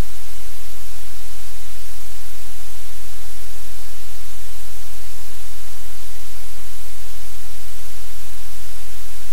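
Loud, steady static hiss with a low hum underneath, unchanging throughout, with no other sound standing out.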